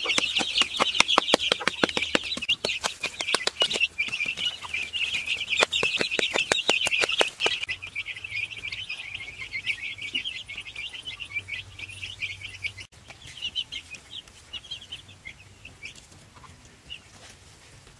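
A flock of young chicks peeping, a dense run of short high chirps that grows quieter after about seven seconds. Over the first half a rapid patter of sharp clicks and taps sounds with them.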